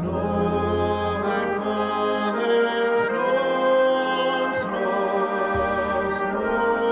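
Brass band playing slow, sustained chords from a Christmas carol arrangement, with a low bass line under the first second.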